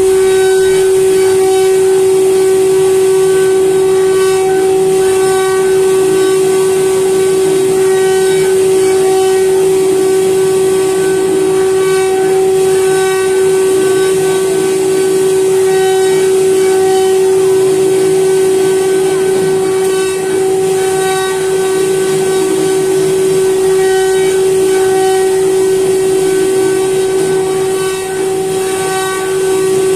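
CNC router spindle running with a steady high whine as its bit cuts into a wooden board, over the hiss of the cutter in the wood. The whine's higher tones swell and fade slightly every couple of seconds as the bit moves through the cut.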